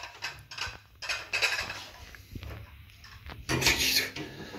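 Porcelain cups and saucers clinking and rattling against each other as they are moved, a scatter of light clinks with two louder rattling stretches, one about a second in and one near the end.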